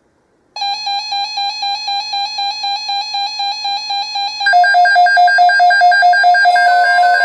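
Electronic alarm-like beeping tone: a synthesized pulsing note, about four or five beeps a second, starting about half a second in, then stepping to a lower, louder note with a second tone layered on about four and a half seconds in.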